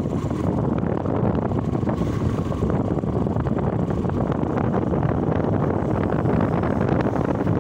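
Wind rushing over the microphone of a moving motorcycle, steady throughout, with the bike's engine and road noise underneath.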